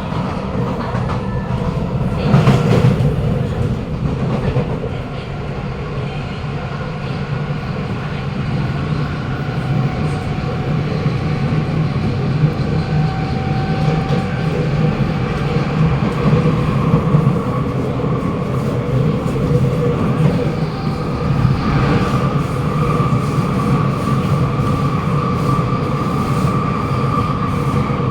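Kawasaki Nippon Sharyo C751B metro car running between stations, heard from inside the carriage: a steady rumble of wheels on rail with held whining tones over it, the higher whine growing stronger in the second half. There is a brief louder surge about two seconds in and another about twenty-two seconds in. The uploader puts this car's weird noises and screeching down to a terrible state, most probably worn-out wheels.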